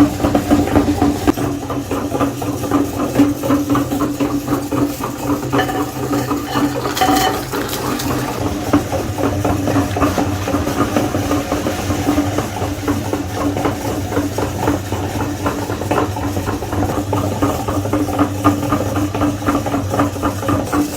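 Electric meat grinder running steadily with a constant motor hum and a dense crackle of food being crushed through it.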